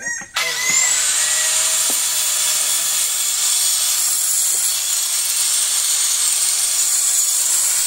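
Handheld electric angle grinder with a cutting disc starting up about a third of a second in, its whine climbing quickly, then running steadily at full speed with a loud hiss of cutting through tile.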